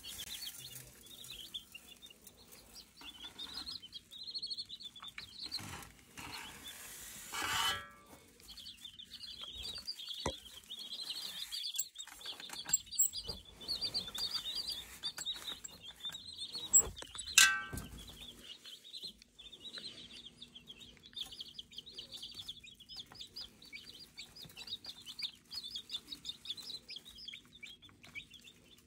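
A brood of baby meat chicks peeping constantly in high, rapid chirps. Feed is handled in their tray, with a rustle near a quarter of the way in and a sharp knock a little past halfway.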